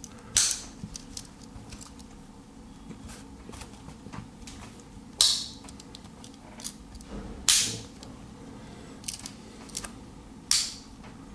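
Victorinox Tinker Swiss Army knife being handled and its tools closed: four sharp snapping clicks spaced a few seconds apart, with lighter clicks in between.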